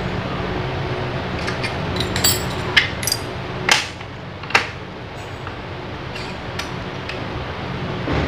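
Several sharp metallic clinks of parts or tools being handled, about five in quick succession a couple of seconds in, over a steady low background hum.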